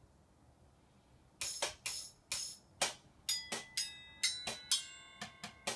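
Improvised bucket-drum kit of metal pails and pot lids struck with chopsticks. After about a second and a half of quiet comes a run of sharp hits, many leaving a ringing metallic tone, getting quicker toward the end.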